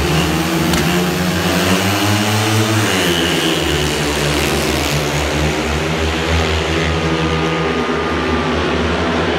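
Four speedway motorcycles with 500 cc single-cylinder methanol engines revving at the start line, then accelerating away off the start together. Their pitch rises over the first few seconds, and the engines then run on steadily as the pack races around the track.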